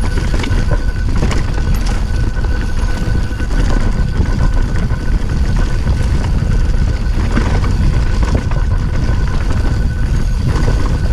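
Mountain bike descending a rough dirt trail: steady wind rumble on a handlebar-mounted camera's microphone, with the bike's frame and parts knocking and rattling over bumps and rocks.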